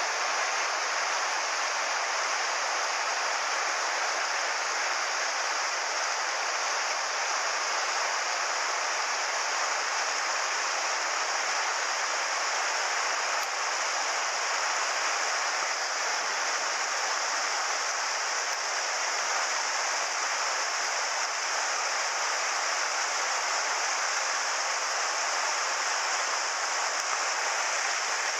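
Mountain river water rushing steadily: a constant, even rush with no breaks.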